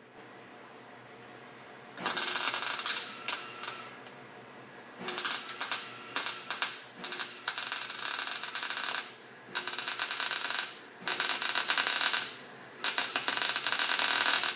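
MIG welder crackling as it lays short welds on the steel roll-cage tubing. It starts about two seconds in, and there are about six runs of one to two seconds each, with brief pauses between them. Some runs are broken into quick stitches.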